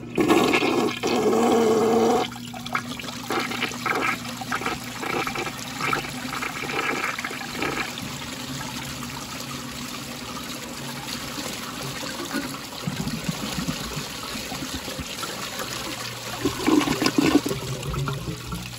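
1986 American Standard Cadet toilet flushing. Water rushes loudly into the bowl for the first two seconds, then swirls and drains with uneven surges, and there is a loud gurgle near the end as the bowl empties.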